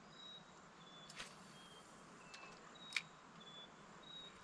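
Faint insect chirping: short, high-pitched chirps every half second or so over near-silent background hiss. Two faint clicks, about a second in and at three seconds.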